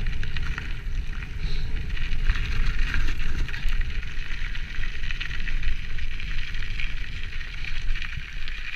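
Mountain bike rolling fast down a snowy forest track: wind rushing over the bike-mounted microphone with a steady low rumble, and the hiss of tyres on snow.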